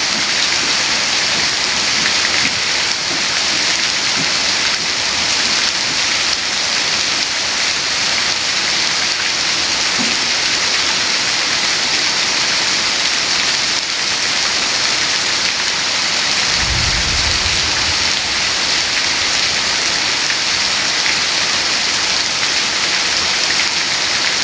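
Heavy rain falling steadily, a dense even hiss. About two-thirds of the way through, a brief low rumble sounds under it.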